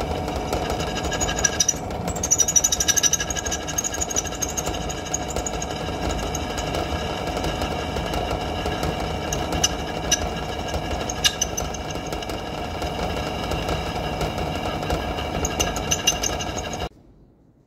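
Bench drill press running, its twist bit cutting into a metal block, with a steady mechanical drone and a high-pitched whine from the cut. The sound cuts off abruptly near the end.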